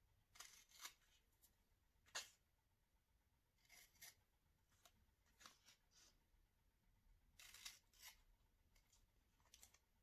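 Scissors snipping through a sheet of printed paper, cutting out a template. A handful of short, faint cuts come at uneven intervals, some in quick pairs.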